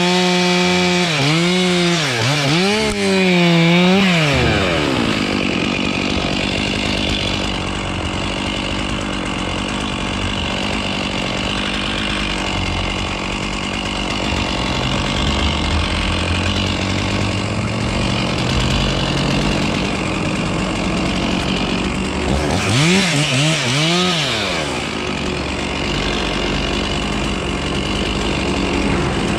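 Two-stroke chainsaw revving up and down a few times, then running steadily under load as it cuts through a dead oak limb. About two thirds of the way through it revs up and down twice more, then goes back to cutting.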